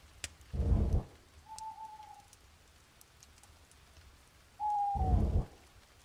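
Two deep booms about four seconds apart, with two short hoot-like tones between them, the second falling in pitch, over a faint hiss.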